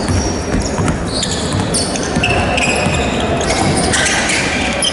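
Basketball being dribbled on a hardwood gym floor, with sneakers squeaking on the court in short high squeals. The sound rings with the echo of a large hall.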